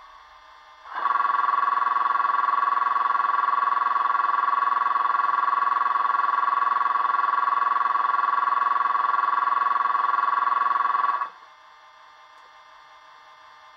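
Sound-decoder playback of a class 85 electric locomotive through a small model speaker: a long, steady single-pitch warning horn starts about a second in, holds for about ten seconds, then cuts off suddenly. A quieter steady electrical hum from the decoder's locomotive sound is heard before and after it.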